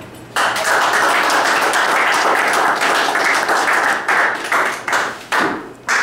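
Small group of people applauding: the clapping starts suddenly just under half a second in, holds steady and dense, then breaks up into a few scattered single claps near the end.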